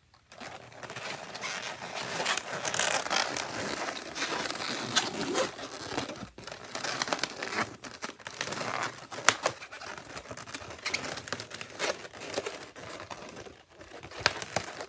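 Inflated latex modelling balloons squeaking and rubbing against each other as they are twisted and worked into shape by hand, a continuous crinkly squeaking with one sharper squeak about nine seconds in.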